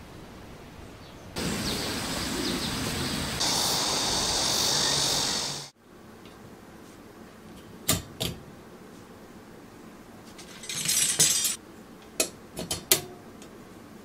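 A few seconds of steady hissing noise that cuts off abruptly, then the pieces of a white-coated wire dish rack being fitted together by hand: two sharp clicks, a short rattle, and three more light clinks near the end.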